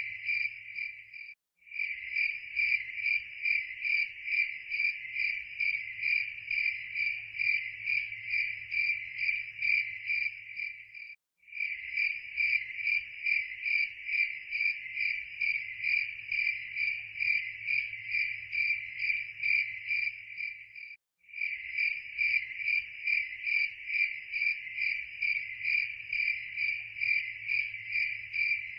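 Crickets chirping in an even rhythm, about three high chirps a second. The chirping cuts out briefly about every ten seconds, twice within this stretch.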